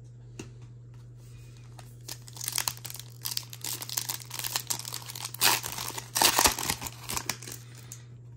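Foil trading-card pack wrapper being torn open and crinkled: a run of crackling and tearing that starts about two seconds in and stops just before the end, loudest near the middle.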